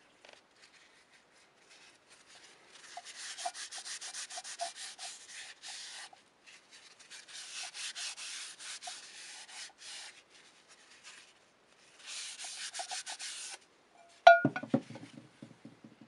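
Sandpaper rubbed by hand over dried putty filling a crack in a metal cowbell, in three bouts of quick back-and-forth strokes. Near the end comes one sharp metallic knock with a short ring, then a few lighter knocks.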